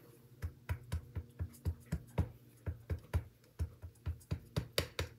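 A rubber stamp on a clear acrylic block tapped again and again onto a Memento ink pad to ink it. The sharp taps, each with a low thud, come about four a second, starting about half a second in.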